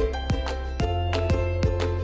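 Instrumental intro music with a steady beat of about three strikes a second over sustained bass and melody notes.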